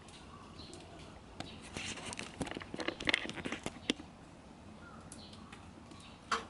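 Close rustling and clicking for a couple of seconds starting about a second and a half in, then one sharp click near the end, with faint bird chirps in the background.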